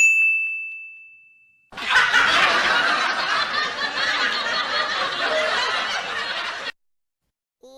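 A single bright bell ding that rings out and fades, followed by about five seconds of crowd laughter that cuts off suddenly: two stock sound effects played back to back.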